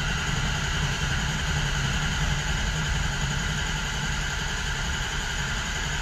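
Starter cranking a 6.0L Ford Power Stroke V8 diesel steadily without it firing: a crank-no-start with almost no high-pressure oil (injection control pressure) to run the injectors, blamed on a bad high-pressure oil pump.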